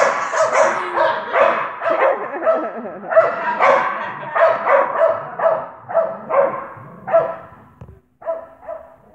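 Small dog barking repeatedly at a fast pace, two to three sharp barks a second, the barks spacing out and growing weaker near the end.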